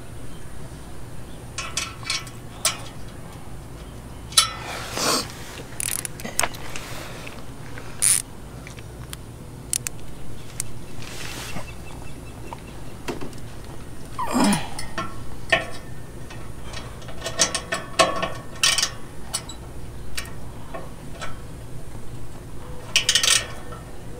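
Socket ratchet clicking in short runs, with scattered metal clinks and rattles of tools and nuts being handled on a steel brush-guard bracket.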